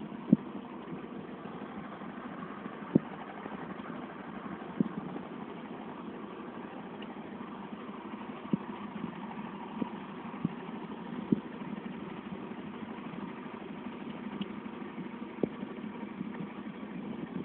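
A vehicle engine running steadily at low revs, with sharp knocks and clunks about every second or two.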